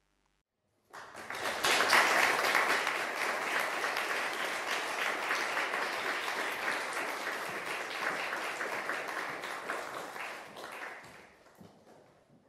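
Audience applauding: the clapping starts suddenly about a second in, is loudest at first and holds steady, then thins out and fades away near the end.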